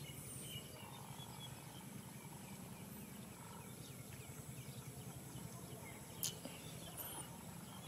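Faint outdoor ambience: a low steady hum with scattered faint high chirps, and a single short click about six seconds in.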